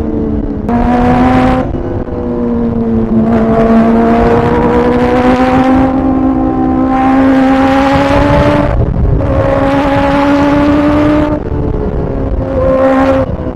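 Kawasaki ZX-4RR's inline-four engine running on the road, the throttle opened in about five pulls with the engine note climbing slowly during each and a rush of intake and exhaust noise on top, dropping back briefly between pulls.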